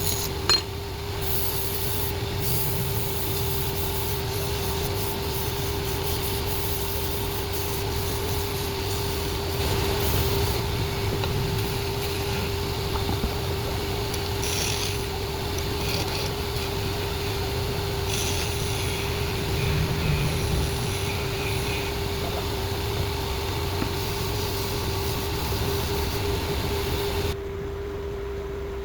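Wood lathe running with a steady hum and low rumble, while something held against the spinning wood scrapes at uneven intervals. About a second before the end the scraping stops and only a quieter hum remains.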